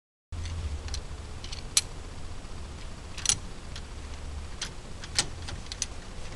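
Sharp metallic clicks and clinks of a slide hammer's puller being fitted into a Ford 8.8 rear axle tube against the wheel bearing, a handful of them scattered irregularly with three louder ones, over a low steady rumble.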